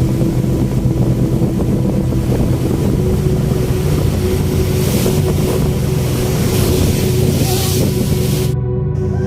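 Loud, steady rushing noise over soft background music, cutting off suddenly near the end.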